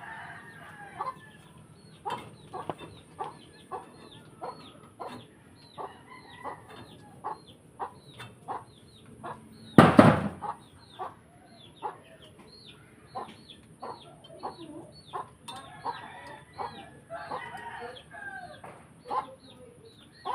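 Chickens clucking and calling over and over, about two short calls a second, with one loud knock about halfway through.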